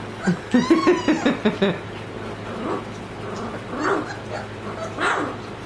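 Several Great Dane puppies calling out excitedly over their first solid food: a quick run of short high calls in the first two seconds, then single calls about once a second.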